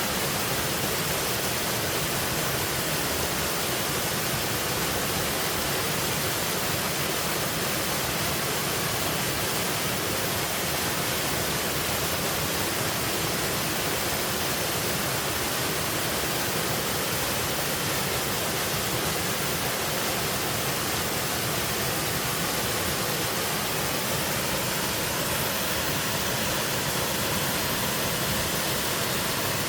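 Mountain waterfall pouring steadily, an even rushing of falling water that does not change.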